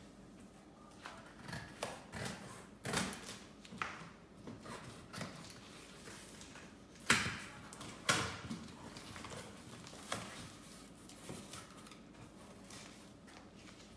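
Scissors snipping through the packing tape on a cardboard carton, followed by cardboard flaps rustling and crinkling as they are pulled open. The sounds come as scattered sharp snips and scrapes, the loudest two about seven and eight seconds in.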